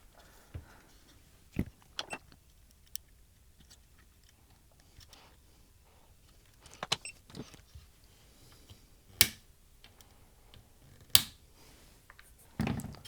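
Scattered small clicks and taps of hand tools and a component being handled on a circuit board while a capacitor is fitted, with two louder sharp clicks about nine and eleven seconds in and a duller knock near the end.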